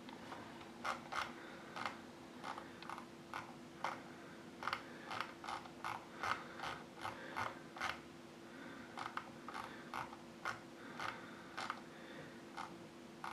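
Run of sharp clicks, two or three a second, from scrolling down a long web page on a computer, with a short lull about two-thirds of the way through. A faint steady hum runs underneath.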